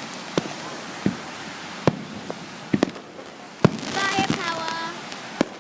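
Fireworks going off: about half a dozen sharp bangs at irregular intervals, with a voice shouting near the end.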